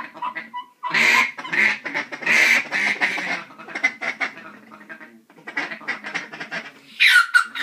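A boy's voice making rapid, rough quacking noises like a duck, in several runs with short breaks, loudest near the end.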